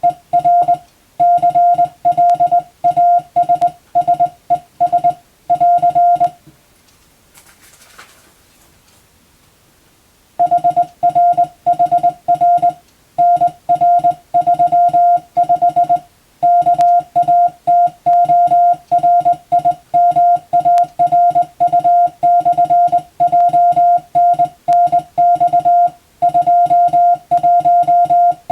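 Hand-sent Morse code (CW): a steady single-pitch tone keyed on and off in dots and dashes. The sending stops for about four seconds starting about six seconds in, then resumes.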